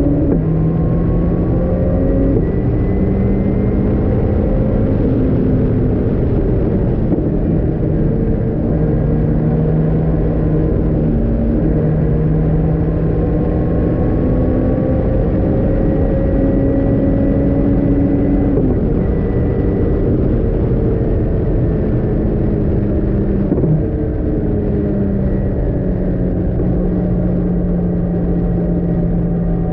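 Caterham R500's four-cylinder engine heard from the open cockpit at racing speed, its note climbing and stepping through gear shifts, then falling away as the car slows in the second half. A steady low rumble of wind and road runs under it.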